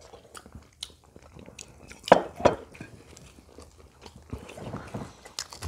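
Several people chewing and biting into fried food, with scattered small clicks of chopsticks and forks against plates. The loudest moment comes a little after two seconds in.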